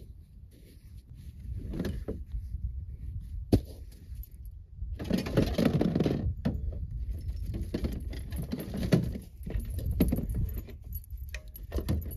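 Ice-fishing gear being handled and pulled out of a plastic sled: rattling, clinking and knocking of metal tools, with one sharp knock about three and a half seconds in and a denser rustling, clattering stretch around five to six seconds. A steady low rumble of wind on the microphone lies under it.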